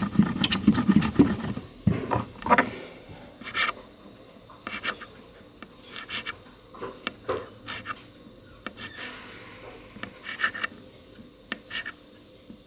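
A palm rolling plasticine across a tabletop, a rubbing sound for the first two seconds or so. Then a small knife cuts the plasticine into pieces, its blade tapping the table in scattered clicks.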